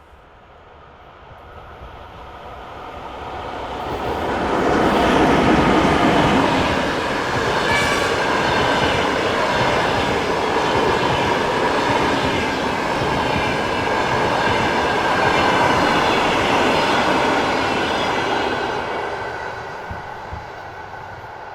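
Passenger train passing by. It builds up over about five seconds, runs steadily past for some twelve seconds, then fades over the last few seconds.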